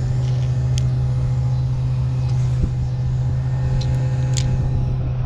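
A steady low mechanical hum holding one pitch, with fainter higher tones over it. A few light clicks come about a second in and twice near four seconds in, from the spinning reel being handled.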